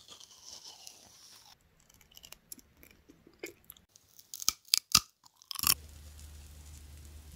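Close-miked biting and crunching of food, scattered sharp crunches with the loudest few about four and a half to five seconds in, then a steady low hum from about five and a half seconds on.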